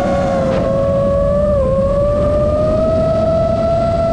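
Five-inch FPV quadcopter's brushless motors and propellers whining in flight over a rush of air. The pitch dips briefly about a second and a half in, then climbs slowly and holds steady.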